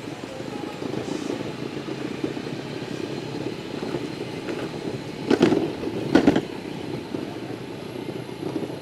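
Electric skateboard wheels rumbling steadily over a paved path. Two loud thumps come a little past the middle, under a second apart.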